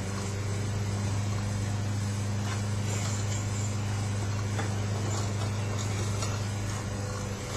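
Steady low mechanical hum, with a few faint light taps.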